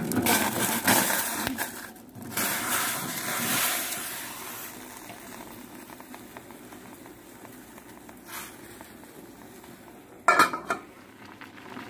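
Water boiling in a stainless steel pot, the bubbling noise growing quieter after about four seconds. Near the end a metal lid clatters down onto the pot.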